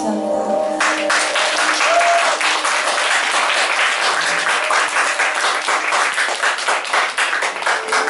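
The last sustained chord of a stage keyboard dies away. About a second in, audience applause starts and carries on, loose and even.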